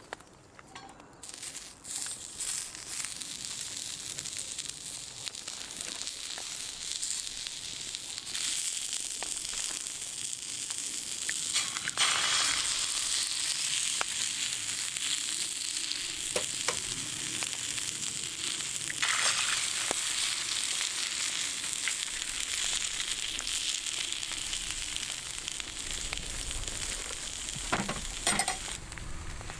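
Wood fire burning in a fire pit, a steady hiss with scattered crackles and pops, starting about a second in.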